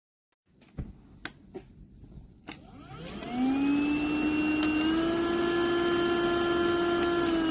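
CylRedbat cordless handheld dust mite vacuum cleaner: a few light clicks, then its motor spins up with a rising whine about three seconds in and settles into a steady, high-pitched running tone.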